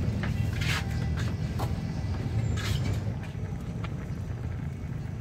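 Pot of barracuda fish soup with pechay leaves simmering on the stove: a steady low rumble with a few faint, scattered bubbling pops.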